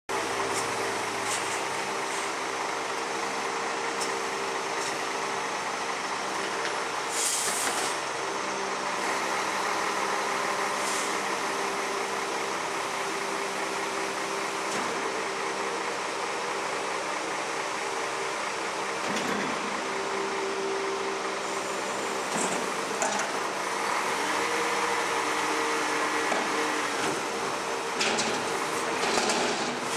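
Scania front-lift garbage truck's diesel engine running with a low rumble while the hydraulic lift arms work. A brief burst of air hiss comes about seven seconds in, and clunks near the end come as a recycling bin is raised over the cab and tipped.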